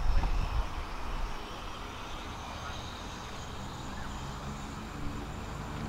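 Cessna Caravan's single turboprop engine running as the plane taxis, a steady high turbine whine over a low propeller hum that grows louder near the end. A heavy low rumble fills the first second or so.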